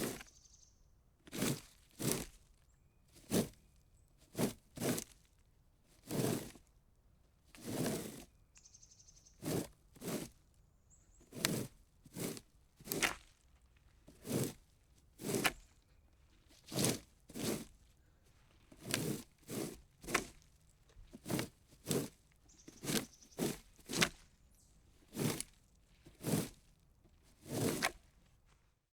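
Plastic rake dragged in short raking strokes, roughly one a second and some in quick pairs, each a brief scrape.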